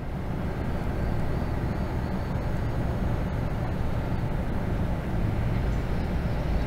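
Steady low rumble with a light hiss, the background of an outdoor location recording, with no distinct events.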